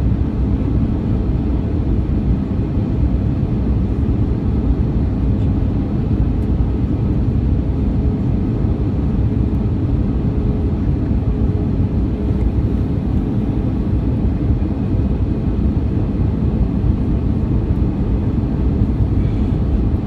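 Steady cabin noise of an Airbus A320 airliner in flight: a continuous low rush of airflow and engine drone, even in level throughout.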